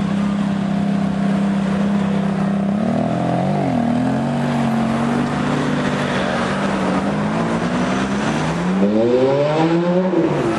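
Ferrari F430 Spider's 4.3-litre V8 running at low, steady revs, with a short blip of the throttle about three seconds in. Near the end it revs up in a rising wail and drops back as it shifts up.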